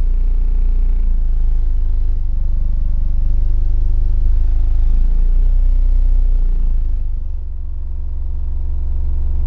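Music played loud through two American Bass XR 15-inch subwoofers, heard inside an SUV's cabin; the deep bass is far louder than the rest of the track.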